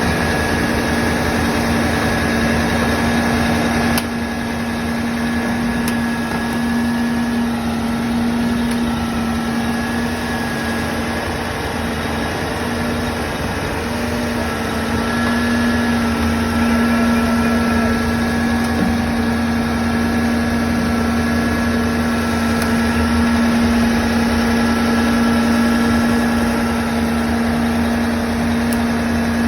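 Cutter soil mixing (CSM) rig's engine and hydraulic drive running steadily during a trial cut: a continuous machine hum with a fainter high whine over it.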